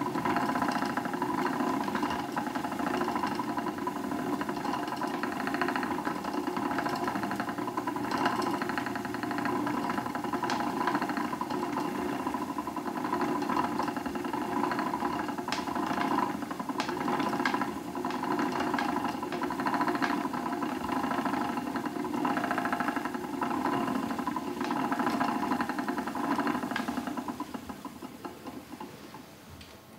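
Wooden treadle spinning wheel turning steadily while wool is spun into yarn. It makes a fast, even mechanical whir with scattered small clicks. The sound fades away over the last few seconds.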